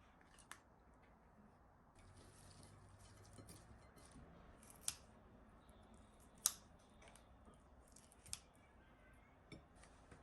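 Near silence broken by five short, sharp clicks or snips, one every second or two, the loudest about six and a half seconds in.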